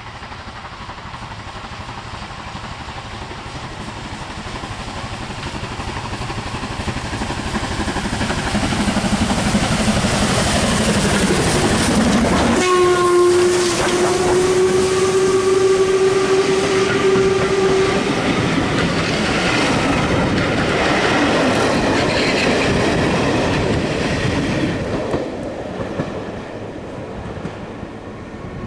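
Steam locomotive, a rebuilt Bulleid Battle of Britain class light pacific running as No. 34098, approaches and passes close with its train, growing louder as it nears. About halfway through its whistle sounds one steady note for about five seconds. The coaches then rumble and clatter over the rail joints and begin to fade near the end.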